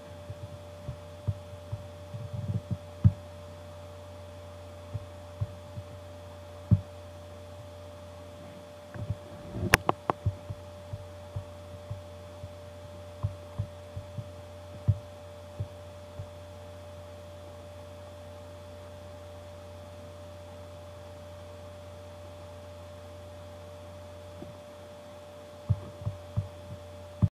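Scattered sharp clicks and knocks from a computer being operated (mouse or trackpad clicks and handling), picked up by its built-in microphone over a steady low electrical hum. The clicks come in clusters, with the loudest knock about ten seconds in and a last few near the end.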